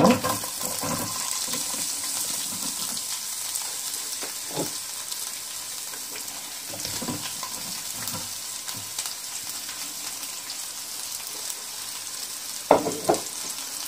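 Sliced onions sizzling in hot oil in a stainless steel pan, a little louder as they go in and then a steady frying hiss. A wooden spatula stirs them, with the odd knock against the pan.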